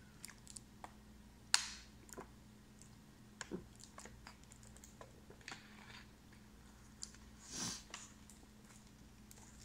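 Drinking from a plastic water bottle: scattered soft clicks and mouth sounds of sipping and swallowing, with a sharper click about one and a half seconds in and a longer breathy noise near the end.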